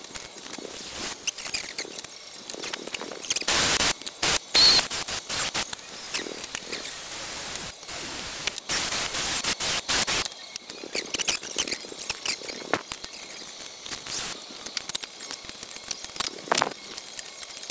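Hand tools and thin aluminium strips clicking, clattering and scraping on a workbench as the metal is cut and handled with snips and pliers. Louder bursts of noise come about four seconds in and again around nine to ten seconds.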